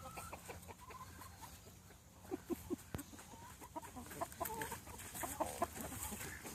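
A flock of chickens clucking, with short calls scattered through and coming more often from about two seconds in.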